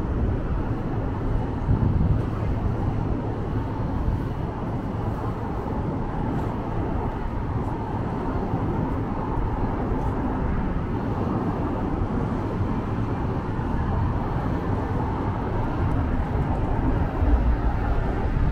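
City street ambience: a steady rumble of road traffic from passing vehicles, growing a little louder near the end.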